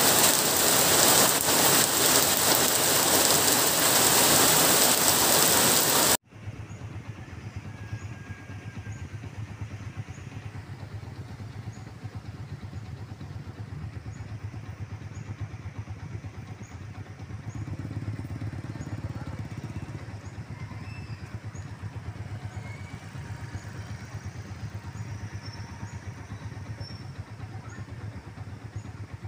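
Heavy rain pouring steadily onto a street, cutting off suddenly about six seconds in. After it comes quieter road traffic: motorcycle and car engines running in a slow-moving jam.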